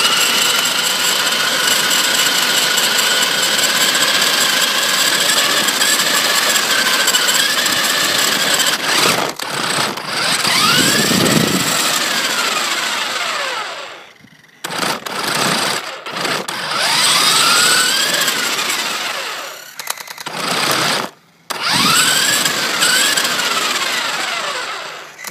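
Remote-control car's electric drive motor and gears whining as it drives on asphalt. The pitch holds steady at first, then rises and falls as the car speeds up and slows, with several short stops.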